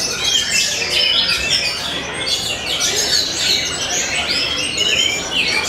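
Caged orange-headed thrushes singing in competition, several at once: a dense, unbroken stream of quick overlapping chirps and whistled phrases.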